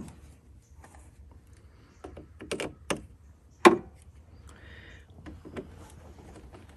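A few sharp clicks and knocks from something being handled, bunched together about two to three seconds in, with a single louder knock shortly after and a brief rustle later.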